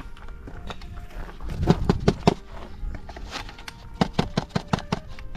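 Scattered knocks and clicks of a tractor's hard plastic air-intake parts being handled, with a quick run of sharp clicks about four seconds in.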